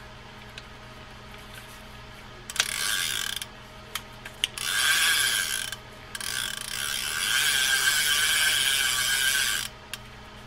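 Fin-Nor Ahab 16 saltwater spinning reel being cranked by hand in three runs: a short one, a second one, then a longer one of about three and a half seconds. Each run is the steady whir of the gears and spinning rotor, with a few sharp clicks in between. This is a test turn after the reel was cleaned and regreased to cure its tightness; the repairer judges it smoother.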